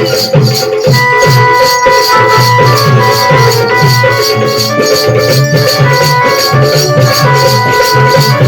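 Instrumental Adivasi folk dance music: a drum beating a steady rhythm under a fast, even shaker or rattle, with a melody of held notes above.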